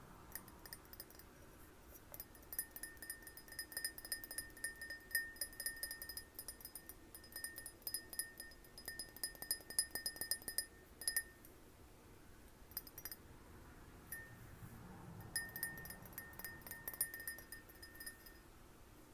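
A glass tapped rapidly and lightly, ringing with a clear, steady pitch. There are two long runs of quick taps, with a short pause and a few stray taps between them.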